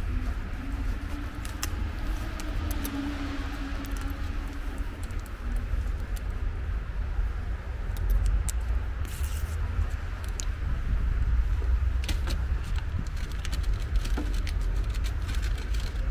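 Crinkling and clicking of a foil cat-food pouch being handled and opened, growing busier in the second half, over a steady low outdoor rumble.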